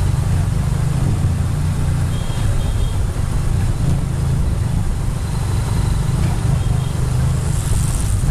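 Large adventure motorcycle's engine running steadily at low speed, heard from on the bike itself, with no revving.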